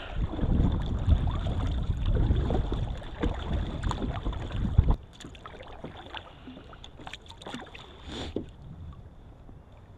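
Kayak paddle strokes dipping and splashing in choppy water, with a low wind rumble on the microphone. About five seconds in, the sound drops suddenly to quiet water lapping with a few light splashes and clicks.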